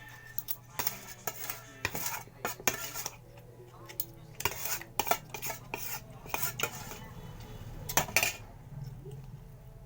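Cutlery clinking and scraping against a plate in quick, irregular strokes, as food is scooped and mixed.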